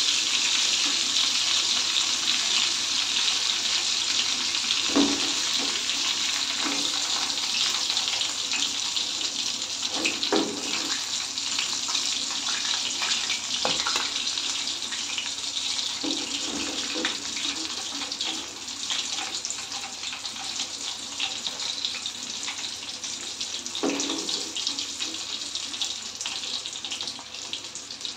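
Chicken pieces deep-frying in oil in a metal kadai, a steady sizzling hiss that slowly fades. A few knocks of a steel slotted spoon against the pan come through it.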